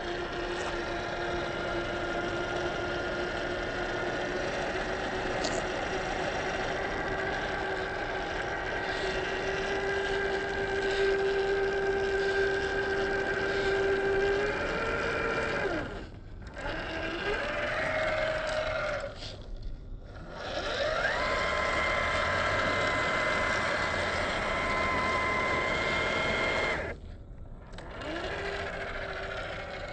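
Electric motor and gear drivetrain of a 1/10-scale Boom Racing BRX02 RC crawler whining under throttle. The whine holds steady, rises to a higher pitch, and cuts out briefly three times as the throttle is released, swelling back each time it is reapplied.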